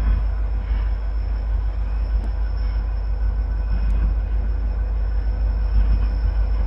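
Norfolk Southern train rolling past, a steady low rumble of the cars on the rails.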